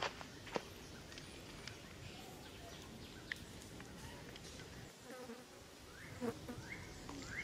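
A buzzing insect, with two sharp clicks in the first second and a run of short rising chirps near the end.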